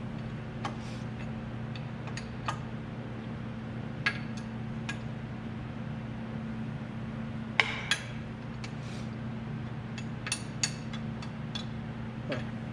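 Scattered metallic clinks and clicks of hand tools and loose steel parts being handled while a lathe is taken apart, about a dozen irregular knocks with the loudest a little past the middle, over a steady low hum.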